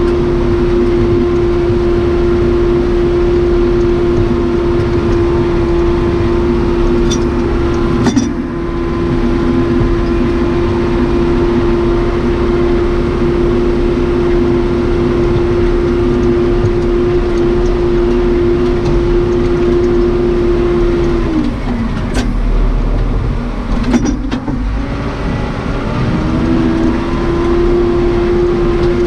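Case 580 Super K backhoe's Cummins 4BT diesel running steadily at working throttle with a steady whine. The pitch sags about 21 seconds in and climbs back about six seconds later, and two short clunks come at about 8 and 24 seconds.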